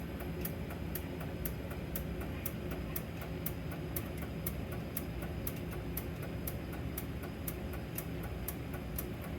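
Steady, even ticking, about two ticks a second, over a low steady hum.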